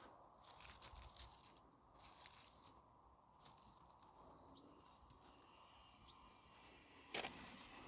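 Hands rummaging through garden soil to feel for potatoes: faint rustling and crunching in several short bursts, the loudest near the end.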